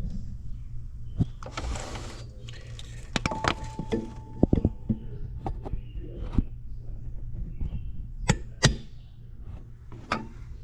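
Cold-started VW direct-injection engine idling unevenly: a steady low rumble broken by irregular knocks and stumbles. This is a cold-start misfire, blamed on carbon build-up.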